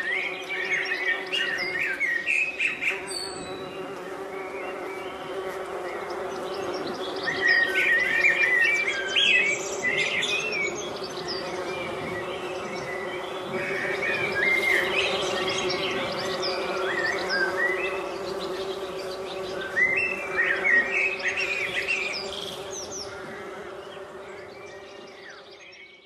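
Honeybees foraging in laburnum blossom make a steady busy drone, while a Eurasian blackbird sings above in about four separate warbling phrases with pauses between them. It all fades out near the end.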